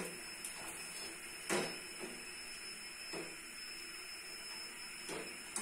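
Metal spoon knocking and scraping against a steel pot while sugar syrup is stirred, a few separate clinks roughly a second and a half apart, the loudest about a second and a half in, over a faint steady hiss.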